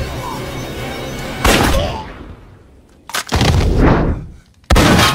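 Action-film soundtrack: dramatic score music broken by four loud, sudden blasts like gunfire or explosions, the last two the longest.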